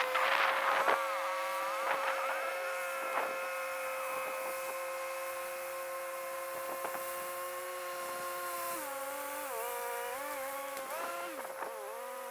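Massey Ferguson 375 tractor's diesel engine running steadily while driving a round baler, with a brief clatter in the first second. Near the end its pitch dips and recovers several times as the load changes.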